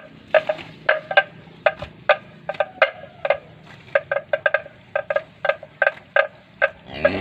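Irregular hollow knocks, two or three a second, each with the same ringing pitch. Right at the end a cow begins a long, low moo.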